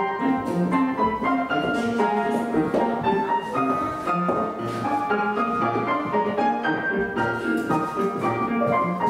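Ballet class accompaniment music led by piano, a run of quick changing notes at an even level.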